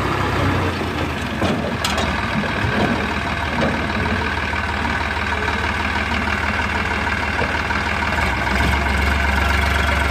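Sonalika DI 50 tractor's diesel engine running steadily as its hydraulic tipping trailer is lowered after unloading soil. The deep engine note grows stronger near the end.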